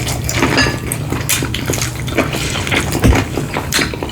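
Close-miked eating sounds: chewing with wet mouth clicks and smacks, coming in quick, irregular bursts. There is a low thump about three seconds in.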